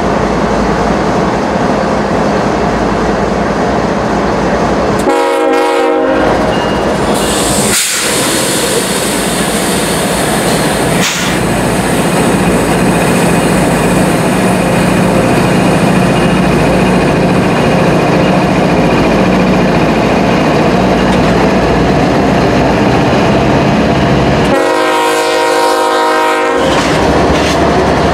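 BNSF diesel locomotives running with a steady drone while a train horn sounds twice: a short blast about five seconds in and a longer one near the end. A loud hiss comes in around eight seconds.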